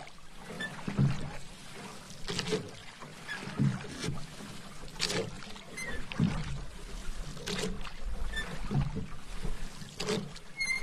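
Paddle strokes through calm water from a small hand-paddled boat, one stroke about every two and a half seconds, with small drips between strokes.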